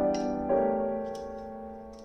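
Soft background piano music: a note struck about half a second in, ringing and fading away.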